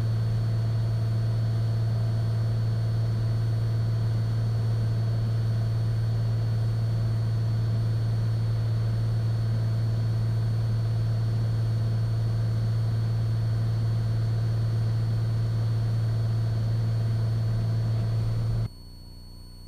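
Steady drone of a Cessna 182 Skylane's piston engine and propeller heard in the cabin in cruise, a constant low hum that cuts off abruptly near the end.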